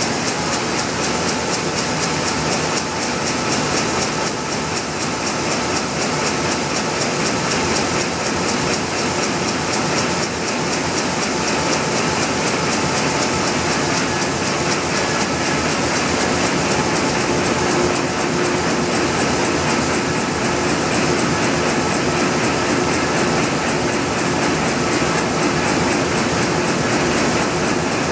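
2005 Komori Lithrone sheet-fed offset printing press running: a loud, steady mechanical clatter with a fast, even rhythm.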